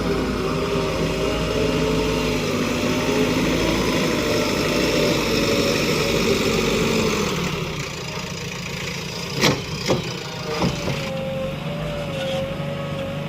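JCB 3DX backhoe loader's diesel engine running steadily, easing down to a lower, idling level about halfway through. Three sharp knocks follow.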